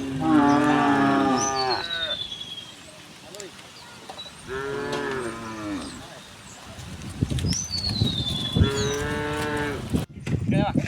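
Cows mooing: three long moos a few seconds apart, the first the loudest.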